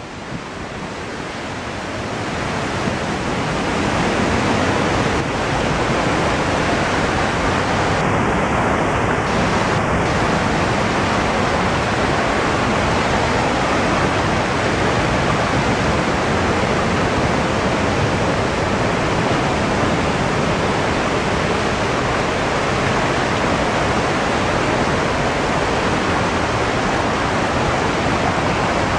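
Waterfall pouring: a loud, steady rush of falling water that grows louder over the first few seconds, then holds.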